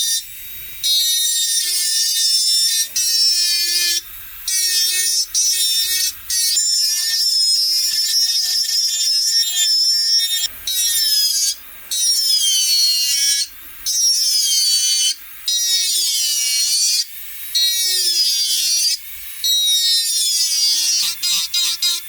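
High-speed rotary power tool cutting or grinding a pistol's polymer grip: a high-pitched whine whose pitch repeatedly dips and recovers, broken by several short gaps.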